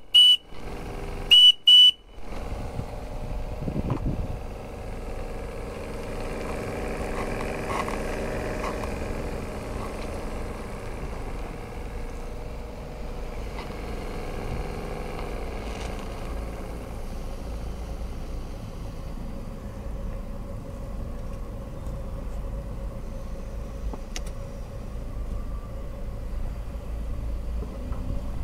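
Three short, loud, high whistle tones in the first two seconds, then a live-steam model marine engine running steadily, its note thinning out over the second half.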